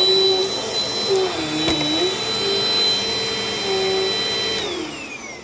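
Vintage Dirt Devil Dynamite Plus vacuum cleaner running with a high motor whine, its note dipping and recovering as the load changes. About four and a half seconds in it is switched off and spins down, the whine falling in pitch as it fades.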